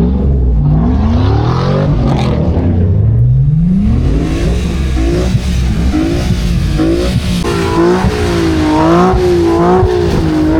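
A car engine revving hard as the car spins in the snow. The pitch climbs in long sweeps at first, then from about halfway it swings quickly up and down, over and over, as the throttle is worked.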